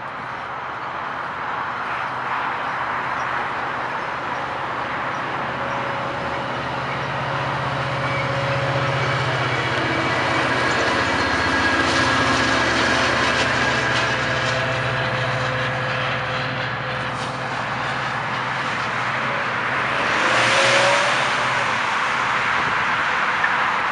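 A bilevel commuter train passing, its diesel locomotive giving a steady low engine drone that grows louder as the locomotive goes by, with clicking wheel and rail noise. About 21 seconds in, a car swishes past close by.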